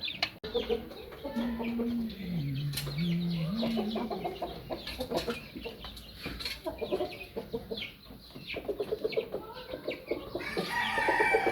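Brahma chickens clucking and calling while they feed, with many short clucks and ticks, a low wavering call a second or so in, and a louder rising call near the end.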